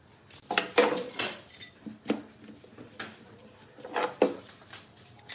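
Hard objects clinking and knocking together in short clusters of clatter, loudest a little under a second in and again about four seconds in.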